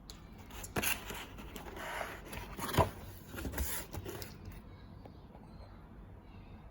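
Packaging of a keycap set being handled and opened by hand: rustling and scraping with a few sharp knocks, the loudest about a third of the way in, dying down to quiet handling after about four seconds.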